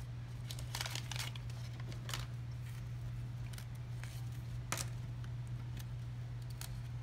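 1986 Topps cardboard baseball cards being handled and shuffled: light rustling and scattered small clicks, over a steady low hum.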